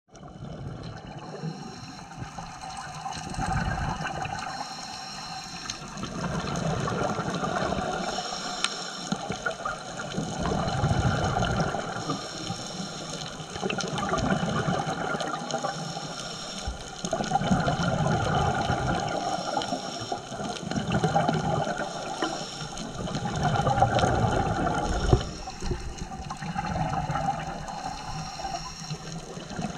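Scuba diver breathing through a regulator underwater, the exhaled bubbles coming in swells about every three to four seconds.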